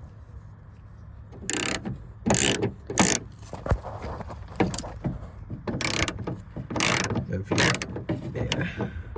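A 3/8-inch drive ratchet clicking in short, repeated strokes as it turns out the single bolt that holds a car door handle, starting about a second and a half in.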